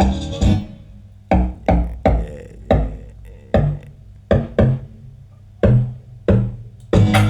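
Trapiano beat (trap blended with amapiano) in a breakdown: the full beat drops out, leaving sparse pitched percussive hits, each with a short decay, and the full beat comes back in near the end.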